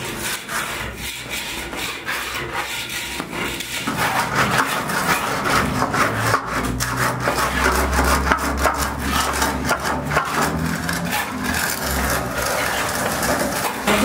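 Plastering tools scraping and rubbing over a rough cement-rendered wall in repeated strokes, with a low hum underneath for several seconds in the middle.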